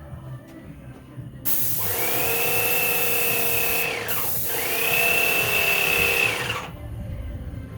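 A power tool runs in two bursts, each a high whine that rises as it spins up and falls as it spins down, over a loud hiss.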